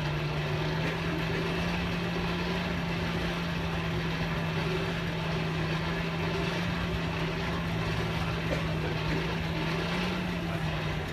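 A steady low mechanical hum, like an engine running evenly, holding one pitch with a slight shift near the end.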